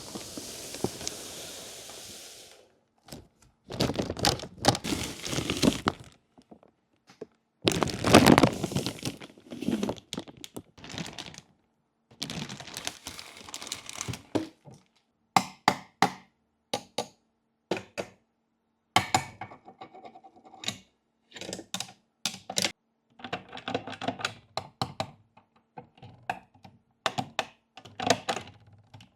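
Small plastic miniature toy pieces being unpacked and handled: a few stretches of packaging rustle in the first third, then a long run of light, uneven clicks and taps as the pieces are set down and fitted together.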